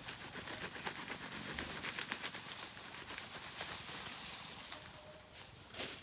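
Leaves and plant stems rustling and crackling as someone handles vegetation, with many small clicks and one louder snap near the end.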